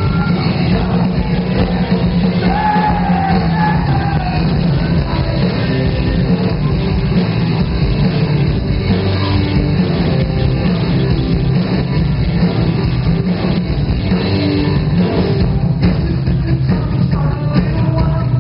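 A live rock band playing loud through a club PA, with electric guitars over a heavy bass and a voice singing at times, heard from the audience floor.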